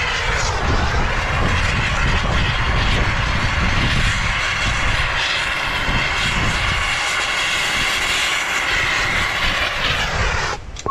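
TurboTorch soldering torch burning with a steady rushing roar as it heats copper for a sweat joint, then shut off shortly before the end. The tip is not giving enough heat for the job.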